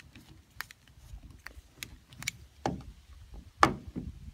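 Scattered light clicks and taps of metal channel-lock pliers and a drywall screw being handled while the screw is worked in a butane cartridge's check valve, with one sharper click near the end.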